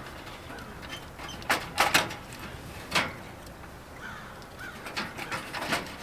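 A few sharp clicks and knocks of hands working the control board and cover inside a Suburban RV furnace's opened compartment, as the board is worked loose to slide out of its slot.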